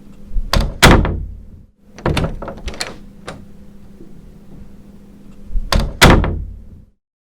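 A door shutting twice with a solid thud, about a second in and again about six seconds in, each time with a short low boom dying away after it. Between the two shuts, around two to three seconds in, come several sharp clicks of the latch and handle as the door is opened.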